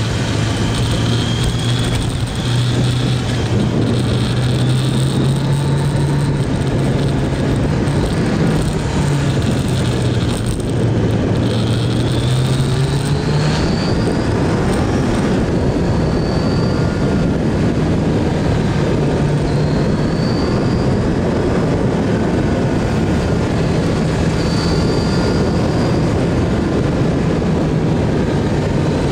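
Motorcycle engine running at road speed through bends, with wind rush. The engine note dips about ten seconds in and then climbs again as the throttle is opened.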